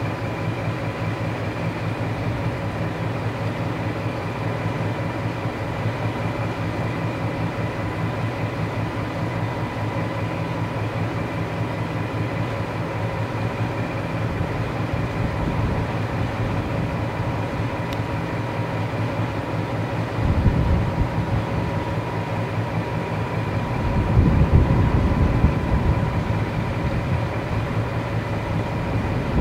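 Class 14 diesel-hydraulic locomotive D9516's Paxman Ventura diesel engine running steadily at idle, with a steady high whistle over the engine note. A deeper rumble swells briefly about twenty seconds in and again for a few seconds near the end.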